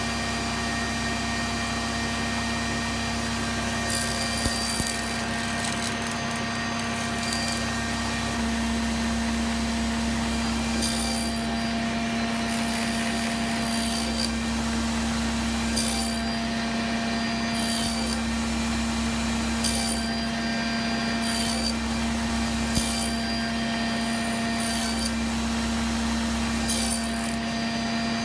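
Table saw running steadily, its blade cutting wood in a series of short passes, about ten over the stretch. These are the rough cuts for rebates in the ends of wooden table legs.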